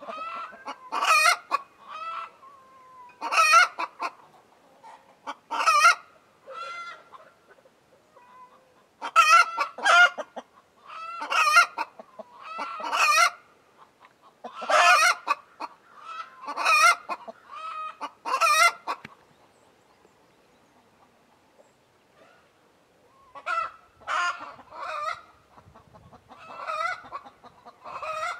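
A hen cackling: a loud, squawking call roughly every two seconds, each with shorter clucks around it, breaking off about two-thirds of the way through and coming back more softly near the end.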